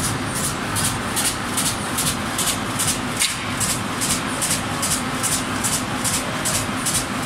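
Corrugated carton box making machine running at working speed: a steady mechanical hum with a regular high swish about two and a half times a second.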